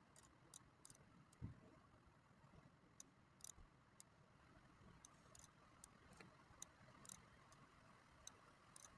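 Near silence, with faint computer mouse clicks at irregular intervals, a dozen or more.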